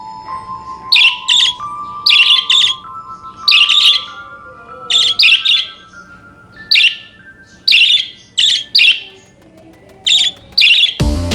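Budgerigar chirping: short, sharp calls, singly or in quick pairs, about once a second.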